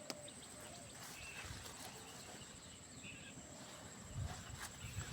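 Faint outdoor field ambience: a thin steady high-pitched hum throughout, a couple of short faint bird chirps, and a few soft low thumps near the end.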